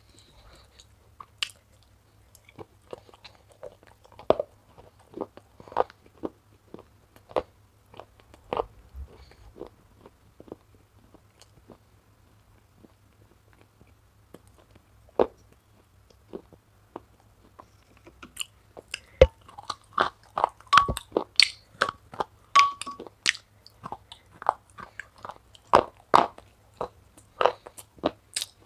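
Close-up mouth sounds of someone eating wet clay paste: sticky chewing, smacks and clicks. They come sparsely at first and crowd together, louder, over the last ten seconds or so. A spoon works in a glass bowl.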